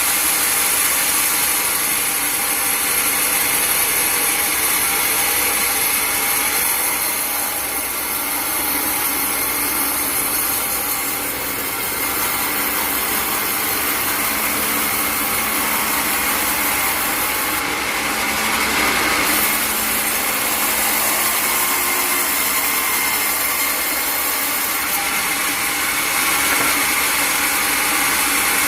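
Sawmill saw running and cutting through timber: a steady, dense sawing noise that swells a little in level now and then.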